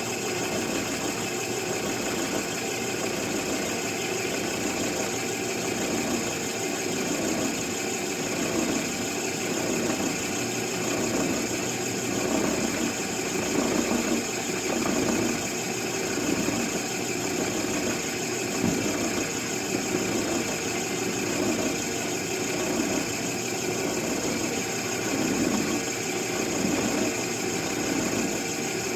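Power tool motor running steadily with a high, even whine as it routes out a plastic support inside a rifle stock to make room for a picatinny rail.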